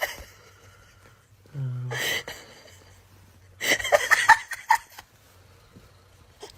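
A person laughing and speaking in a few short bursts, the main burst of laughter a little past the middle, with a brief sound sliding down in pitch about a second and a half in.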